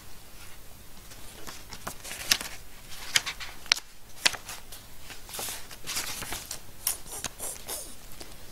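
Paper pages of a book being leafed through: a run of short, irregular papery flicks and rustles.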